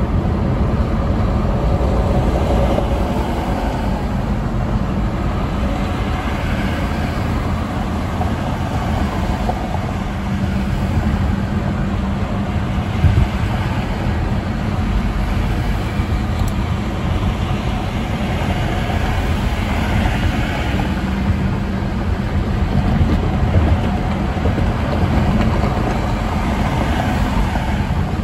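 Car driving at highway speed: steady tyre and road rumble with engine hum. There is a brief thump about halfway through.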